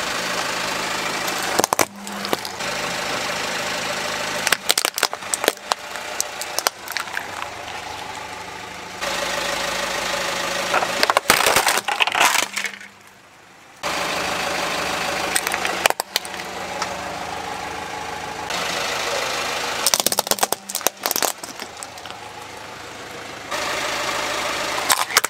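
Car tyre rolling over small plastic toys on concrete, crushing them with sharp cracks and snaps in several separate clusters, over a steady noise of the running car. The background noise changes abruptly every few seconds between shots.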